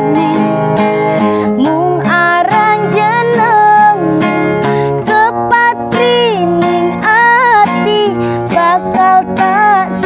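A woman singing a slow Javanese love song, with long notes that waver in pitch, over a strummed acoustic guitar.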